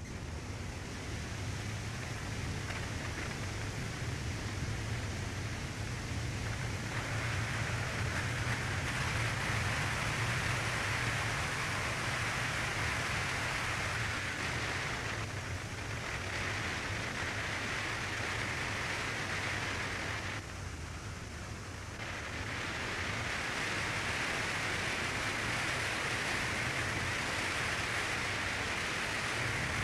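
Steady rush of wind and road noise, with a low rumble underneath, from a Ford Fiesta ST driving at speed. It eases off twice, briefly about halfway through and more clearly about two-thirds through.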